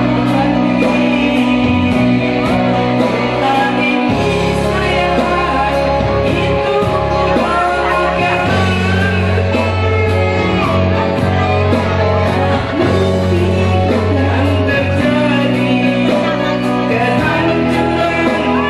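A woman singing into a handheld microphone over amplified backing music, with a bass line that shifts notes every few seconds.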